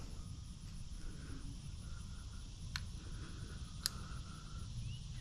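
Outdoor ambience: faint insects chirping and short bird calls over a low steady rumble, with two sharp clicks about three and four seconds in.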